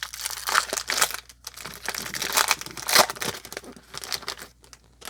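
Wrapper of a 2020 Topps Series 2 jumbo pack of baseball cards being torn open and crinkled by hand, in an irregular run of crackles that dies down near the end.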